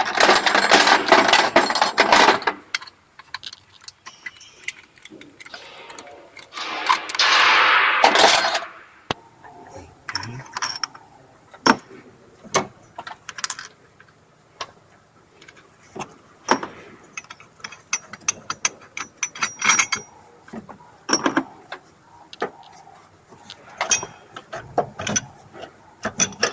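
Hand tools working on the engine mounting bracket bolts: two runs of ratchet-wrench clicking, the first at the start and the second about seven seconds in, then scattered metal clinks and knocks as tools and parts are handled.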